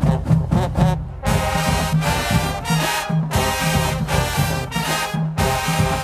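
High school marching band playing: drums, then a full brass section comes in with loud sustained chords about a second in, over steady drum beats.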